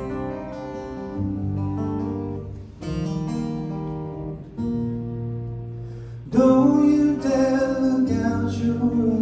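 Acoustic guitar played live, chords struck and left ringing one after another; about six seconds in, a man's singing voice comes in over it, louder than the guitar.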